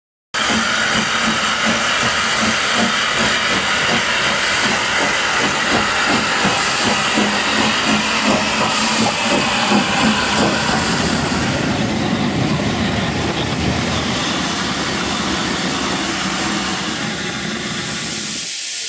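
LNER Class D49 4-4-0 steam locomotive 62712 Morayshire letting off steam: a loud, steady hiss of escaping steam with a rough rumble underneath. It starts abruptly about half a second in, and the rumble drops away near the end.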